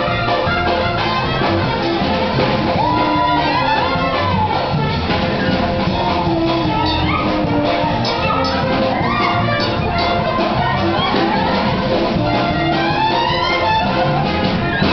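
Lively Ukrainian folk dance music with brass and a steady beat, accompanying a stage dance.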